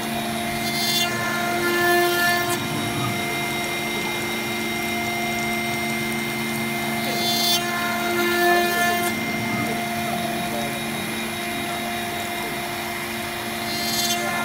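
CNC router spindle running steadily with a small end mill milling into a brass plate, a steady hum with several high tones. Three times, about every six and a half seconds, it swells into a louder, brighter cutting noise as the cutter works round the hole.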